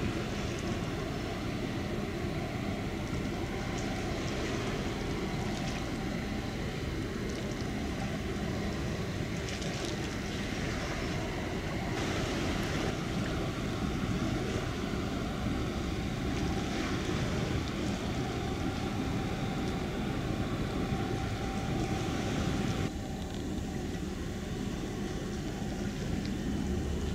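Steady rumble of a tugboat's engines under the rush of water from its wake. The sound shifts abruptly, losing some of its hiss, about 23 seconds in.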